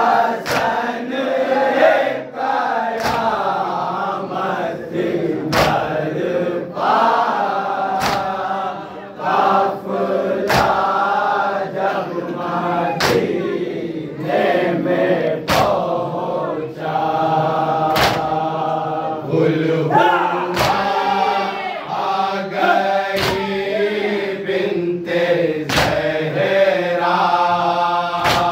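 A group of men chanting a noha (Shia lament) together behind a lead reciter, with a sharp slap of unison chest-beating (matam) about every two and a half seconds.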